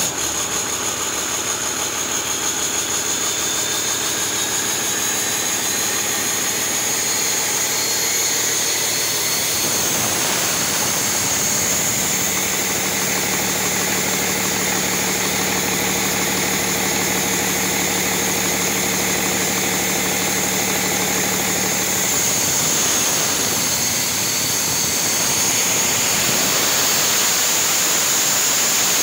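Remanufactured 2009 Cummins ISL 8.9-litre six-cylinder diesel running steadily at idle on a test stand, just after starting, with a steady high whine over the engine. About three quarters of the way through, the low engine tone fades a little and the sound gets slightly louder.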